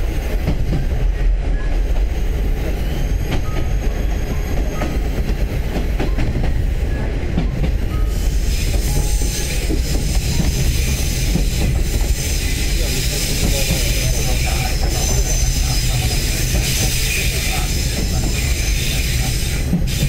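Cabin sound of a KiHa 30 and KiHa 37 diesel railcar pair on the move: a steady low rumble of engine and wheels on rail. About eight seconds in, a high-pitched wheel squeal joins it.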